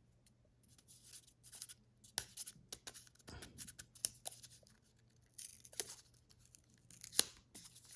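Quiet handling of a GoPro Hero 10 Black camera and its plastic packaging: small clicks, scrapes and crinkles, with a couple of sharper clicks about two seconds in and near the end.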